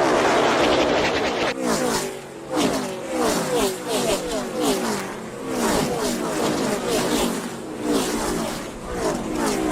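NASCAR stock cars' V8 engines passing at full speed one after another, each engine note dropping in pitch as the car goes by.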